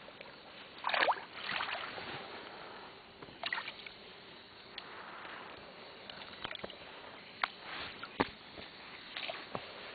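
Water splashing and sloshing around a small boat, with a burst of splashing about a second in and scattered sharp knocks and clicks after it.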